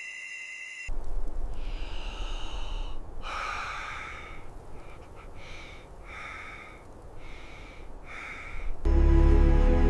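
A person breathing hard, with several separate gasping breaths over a low steady rumble. Music starts loudly about a second before the end.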